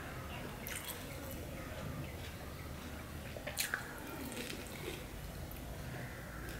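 Close-up eating sounds: rice and fish curry squished by hand on a steel plate, then wet chewing with a couple of sharp mouth smacks a little past the middle.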